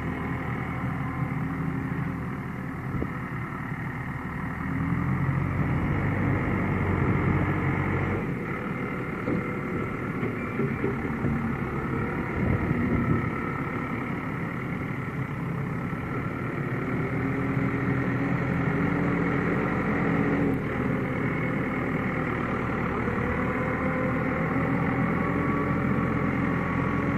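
Case JX75C front-loader tractor's diesel engine running under load as the loader works, its revs rising and falling a couple of times.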